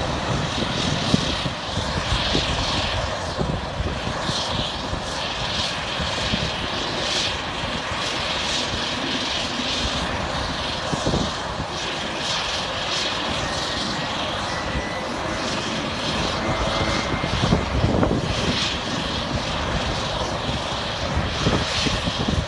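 Turboprop engines of fire-fighting air tankers running on the ramp: a steady engine drone, with a faint high whine about three quarters of the way through.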